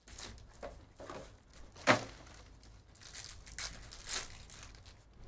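A foil trading-card pack, a 2023 Panini Phoenix Football hobby pack, is pulled from its box and torn open by hand. The wrapper crinkles and rips in a series of short rustles, with one sharp, loud crackle about two seconds in.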